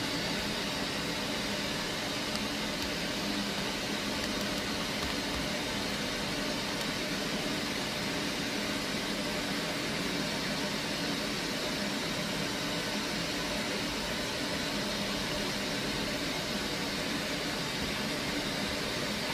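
Steady whirring hum of a running Doosan Mynx 5400/50 vertical machining center: an even noise with a faint low drone beneath it and no knocks or changes.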